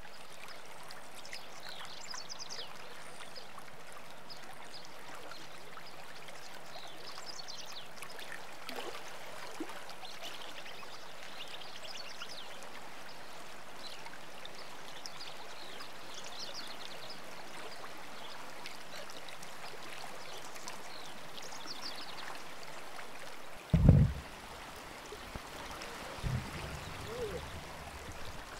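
Steady rush of flowing spring-run water with scattered high chirps. Near the end a loud low thump, then a softer knock a couple of seconds later.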